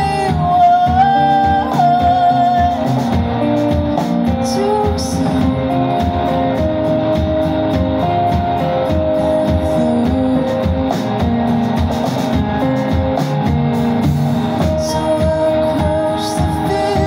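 Live indie band playing: a woman singing over electric guitars, bass guitar and drums.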